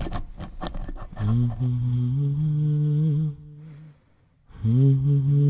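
A person's closed-mouth voice humming or moaning in two long low notes, the second dipping and then rising, with a short near-quiet gap between them; a quick run of sharp clicks comes in the first second.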